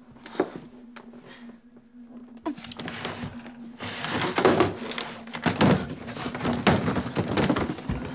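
Scuffling, rustling and repeated knocks of a physical struggle, a single knock about half a second in and then growing busier and louder after a couple of seconds, over a steady low hum.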